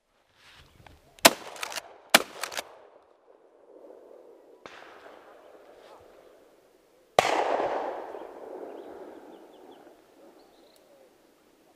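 Shotgun shots during bird shooting. There are sharp reports in the first few seconds, another around five seconds in, and a loud blast about seven seconds in whose echo rolls away over about three seconds.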